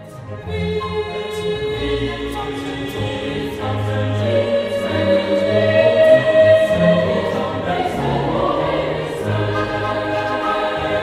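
Background music: a choir singing slow, long-held notes.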